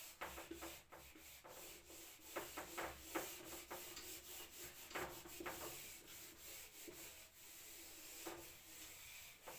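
Whiteboard eraser rubbed back and forth over a whiteboard, a faint rubbing in short, irregular strokes as the writing is wiped off.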